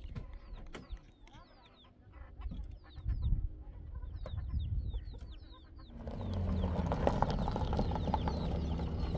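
A rapid series of short falling bird chirps over a faint low rumble. About six seconds in, a pickup truck's engine and its tyres on gravel come up louder and run on as the truck pulls away.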